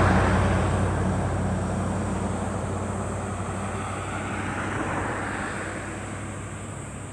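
Steady rushing vehicle noise over a low hum, fading gradually.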